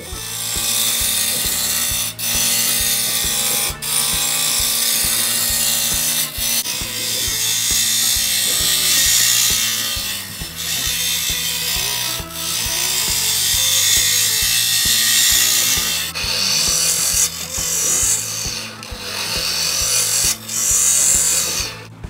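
A turning tool cutting a spinning oak blank on a wood lathe: a loud hissing scrape of wood being shaved, broken by short gaps every few seconds. Background music with a steady bass line plays underneath.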